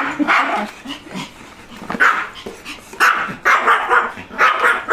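Pomeranian barking in repeated short, sharp, high barks, with a lull about a second in. It is the reactive barking of a small dog at another dog.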